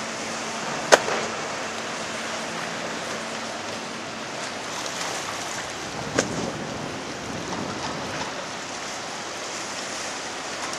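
Steady rush of water and wind from aboard a boat moving along a canal, with a faint low engine hum that fades out about halfway through. Two short knocks stand out, about a second in and about six seconds in.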